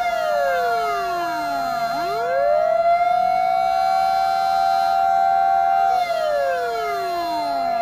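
Fire truck sirens wailing: one siren's pitch falls slowly over about two seconds, swings back up and holds high for a couple of seconds, then falls again near the end, while a second siren holds one steady high note underneath.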